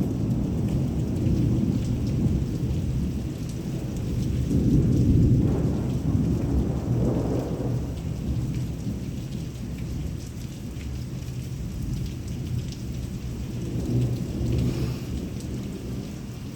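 Thunder rumbling long and low over steady heavy rain, swelling twice in the middle and slowly dying away near the end.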